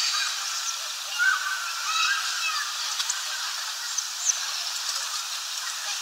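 Small songbirds giving a few short chirping calls, mostly between about one and two and a half seconds in, over a steady background hiss.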